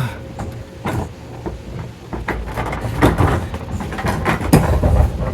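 Heavy metal equipment being shifted: irregular clunks and knocks over a low rumble, with short creaks, loudest in the second half.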